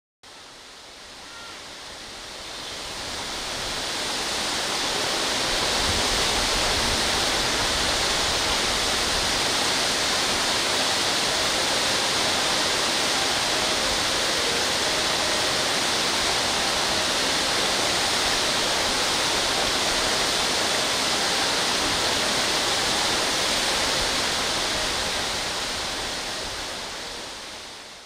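Waterfall pouring over rock: a steady, even rush of falling water that fades in over the first few seconds and fades out near the end.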